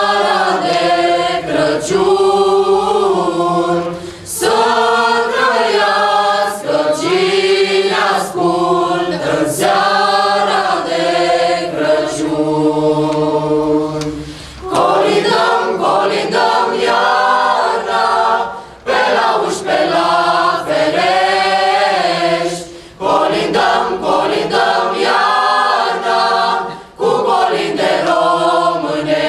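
Youth choir of boys and girls singing a Romanian Christmas carol (colind) a cappella, in phrases with short breaks between them.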